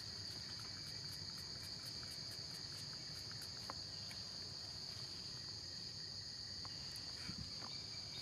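Steady, high-pitched chorus of forest insects, with a faint fast ticking over the first few seconds.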